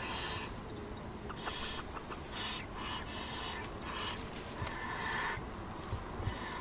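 Barn owl chicks giving their hissing begging calls: a series of short hisses about a second apart.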